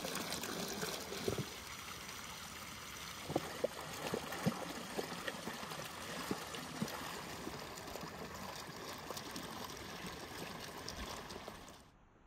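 Running water pouring and splashing onto a stone slab as hands wash green peppers and garlic in it, with a few louder splashes among the steady rush. The water sound stops abruptly near the end.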